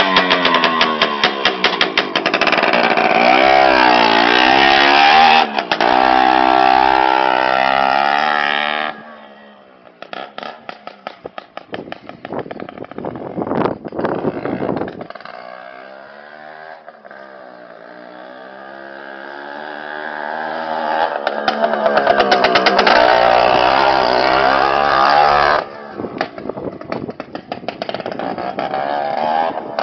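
Sachs two-stroke moped engine of a KTM Foxi running with no exhaust, a loud rasping open-port sound, its pitch rising and falling with the throttle. It is loud at first, fades sharply about nine seconds in as the moped rides away, swells again later as it comes back nearer, and drops suddenly near the end.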